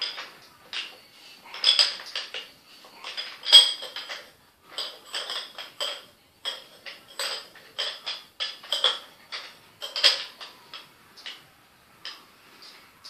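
Irregular clinks and clicks of small hard parts handled by hand as a rocket motor is assembled, several strokes ringing briefly at the same high pitch.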